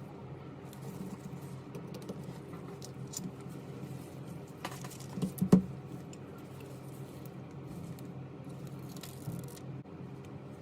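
Small tools and phone parts clicking and tapping as an iPhone is worked on, with a cluster of sharper clicks about halfway. A steady low hum runs underneath.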